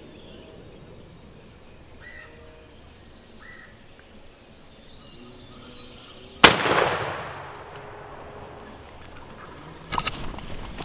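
A single turkey-shotgun blast about six and a half seconds in, its report echoing and fading over about a second, with songbirds chirping before it. Rustling footsteps through leaves and brush begin near the end.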